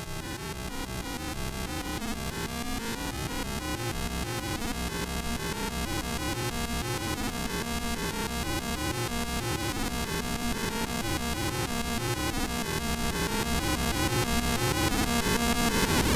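Live electronic music played on modular and analog synthesizers: a fast, evenly repeating sequenced pattern that grows gradually louder.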